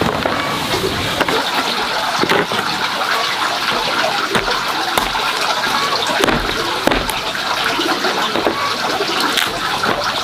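A cleaver chopping through a pumpkin onto a wooden chopping block, with irregular knocks about once a second, over a steady rushing noise in the background.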